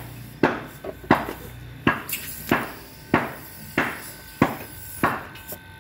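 Hammer blows struck at a steady, even pace, about three every two seconds, each with a brief ring after it.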